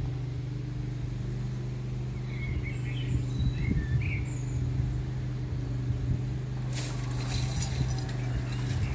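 A steady low engine hum, with birds chirping a few times around the middle. A hiss comes in about two seconds before the end.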